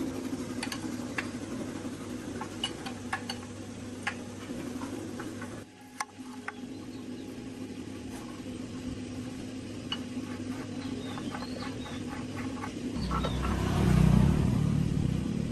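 Scattered light clicks and taps, like hand tools handling metal parts, over a steady low hum. A quick run of ticks comes about two-thirds of the way in, and a low rumble swells up near the end, loudest there.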